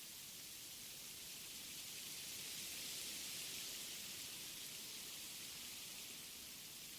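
Wind blowing through forest trees: a faint, steady high hiss of rustling foliage that swells gently about three seconds in and then eases.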